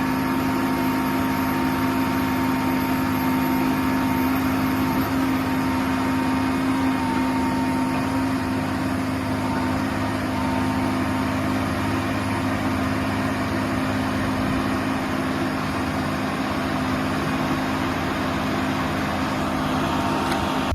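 Sierra RB5000 portable scrap baler/logger's engine-driven power unit running steadily: a constant engine drone with a thin, steady whine above it.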